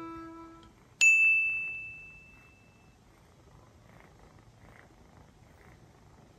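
The last note of a music track fades out, then a single bright bell-like ding sounds about a second in and rings out over roughly two seconds. After it, a faint cat purr.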